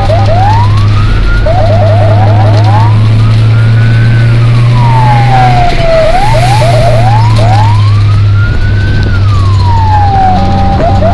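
Fire truck's electronic siren heard loud from inside the cab: long wails that rise and fall, broken twice by runs of quick rising whoops. Under it runs a steady low drone.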